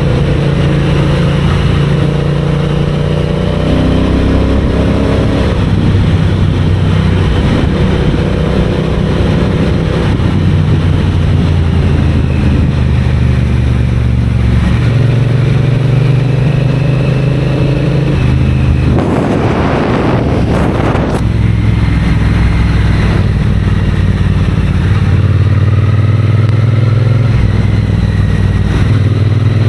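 Triumph Bonneville parallel-twin engine and exhaust under way, its pitch stepping up and down several times with throttle and gear changes. About two-thirds of the way through there is a brief rush of noise lasting a couple of seconds.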